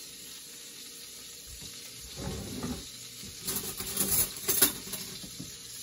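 Food sizzling in a frying pan, with kitchen handling noises: a run of scrapes and clatters starting about two seconds in, loudest near the middle.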